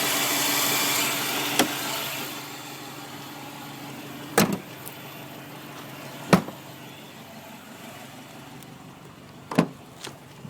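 Subaru WRX running with a thin steady whine, which the owner suspects comes from the belt pulleys, over a hiss that is louder for the first two seconds and then drops. Several sharp clicks punctuate it.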